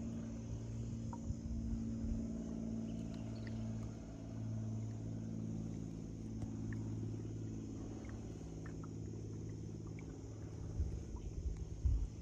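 Steady low motor hum, a few even tones held with little change, with a few faint high ticks over it.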